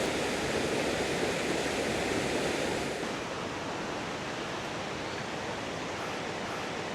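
Steady rushing of a jungle waterfall, an even wash of falling water; it drops a little in level and loses some of its hiss about three seconds in.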